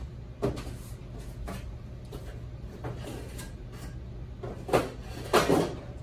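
Scattered knocks and clunks of things being handled off-camera at a workbench, one about half a second in and the two loudest near the end, over a steady low hum.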